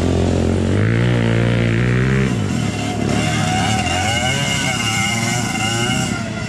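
Two-stroke dirt bike engine racing on a dirt track: loud and steady for the first two seconds or so, then revving up and down as the rider works the throttle through a turn.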